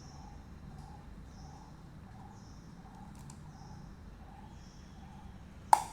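Faint bird calls repeating at an even pace, a lower note about twice a second with a higher chirp about once a second. A single sharp click near the end.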